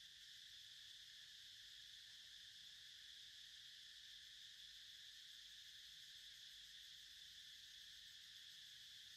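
Faint, steady high-pitched drone of an insect chorus, unbroken throughout.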